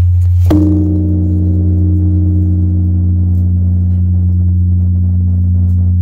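Large Buddhist temple bell struck once with a hanging wooden log striker about half a second in, adding a fresh ring over the deep hum still sounding from an earlier strike. The low hum holds on steadily without fading.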